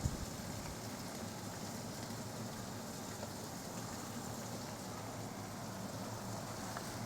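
Steady rushing of river water flowing at the dam, an even hiss with no changes, with a brief low bump right at the start.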